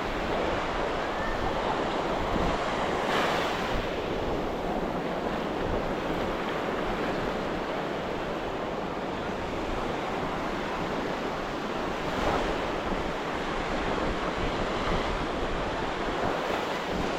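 Ocean surf washing on a sandy beach, a steady wash of breaking waves that swells briefly a few seconds in and again past the middle, with wind buffeting the microphone.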